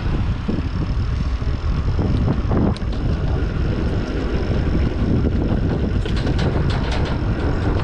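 Wind buffeting the camera microphone on a moving mountain bike, over the noise of tyres on a dirt trail, with scattered clicks and rattles from the bike that grow busier near the end.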